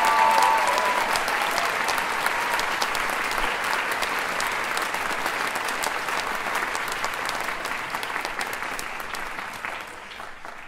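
Audience applauding, with a brief high cheer at the start; the clapping thins and fades away near the end.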